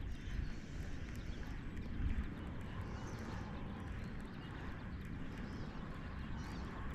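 Outdoor lake ambience: faint bird calls high over a steady low rumble of breeze on the microphone.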